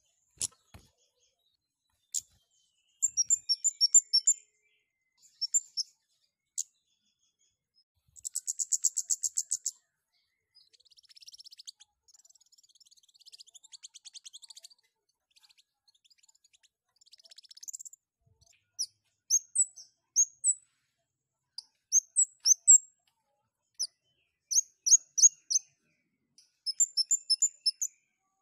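Caged kemade songbird chirping in quick runs of sharp, high-pitched calls, with a fast buzzy trill about eight seconds in and softer twittering in the middle. This is the eager calling of a bird in strong breeding arousal.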